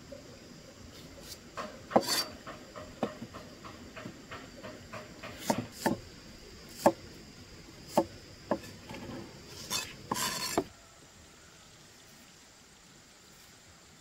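A steel cleaver chopping green bananas on a thick wooden chopping block: a run of irregular knocks, some much louder than others, stopping about ten seconds in.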